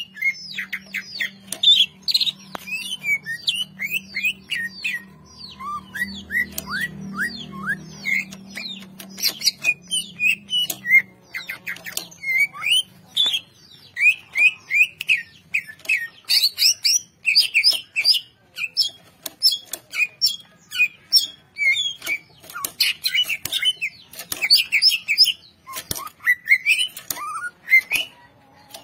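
Male greater green leafbird (cucak ijo) in full, non-stop song: a fast, varied run of short high chirps and whistled glides with sharp clicks scattered among them.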